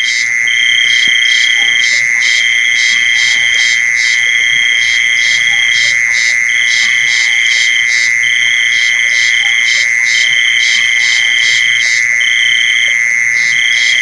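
Mole cricket, field cricket and giant water bug calls mixed together: a steady, unbroken high trill under a repeating call that alternates a held note of about a second and a half with a short run of rapid pulses.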